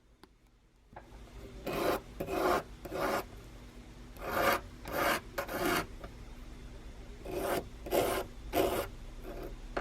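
Hand scraping or rasping, about a dozen short strokes in three quick groups.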